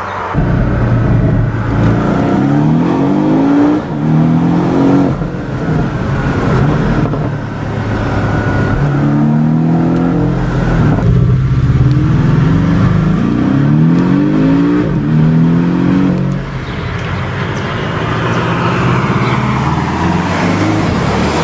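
Porsche 718 Boxster's turbocharged flat-four engine accelerating through the gears: its pitch climbs and drops back at each shift, in a run about two seconds in and another from about nine seconds. It then settles into a steadier drone.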